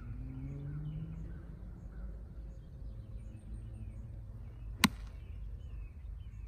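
A 7-iron striking a golf ball off the turf: one sharp click about five seconds in. Birds chirp faintly over a low steady outdoor rumble.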